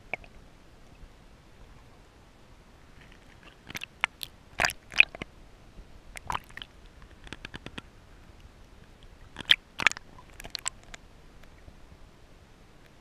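Scattered sharp clicks and knocks picked up underwater over a low hiss: a few about a third of the way in, a quick run of faint ticks in the middle, and the loudest pair about three quarters of the way through.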